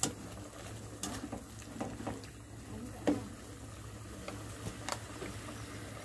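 Metal spoon stirring squid adobo in an aluminium pot, giving scattered light clinks against the pot, about seven in all, over a faint steady low hum.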